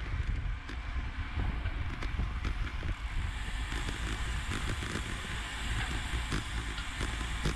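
A bicycle on the move in a race: wind buffeting the microphone and road rumble, with scattered small clicks and knocks from the bike over the road. The hiss gets stronger about three seconds in.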